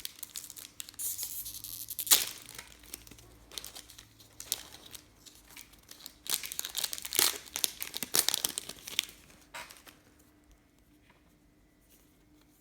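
Wrapper of a pack of footy trading cards crinkling and tearing as the pack is opened, with a sharp rip about two seconds in. The crackling stops about ten seconds in.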